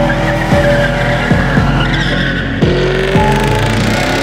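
Hip-hop beat with booming kick drums about every three-quarters of a second, over a car's tyres squealing and its engine revving in a burnout, with a rising pitch in the second half.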